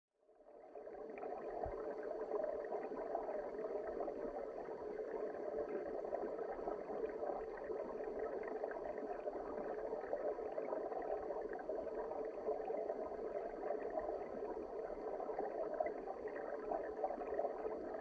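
Stream water flowing, heard from underwater: a steady, muffled rushing that fades in about a second in.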